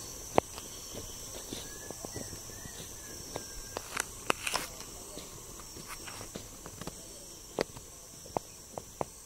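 Footsteps on a forest trail, heard as irregular sharp clicks and snaps, over a steady high-pitched insect chorus.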